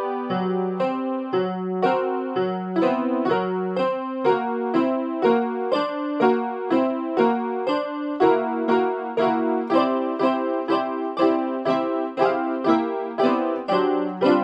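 Casio electronic keyboard playing a tune in an electric-piano sound: a steady, repeating pattern of notes over a low bass line.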